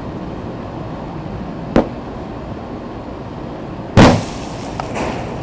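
Buried firework artillery shell going off at ground level: a sharp crack about two seconds in, then a much louder bang about four seconds in, followed by a few smaller pops.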